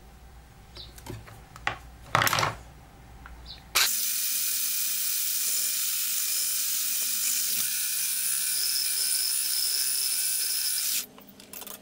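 Electric hand blender with a whisk attachment running steadily, beating eggs and milk in a tall plastic beaker; it switches on about four seconds in and cuts off abruptly near the end. A few light clicks and knocks come before it starts.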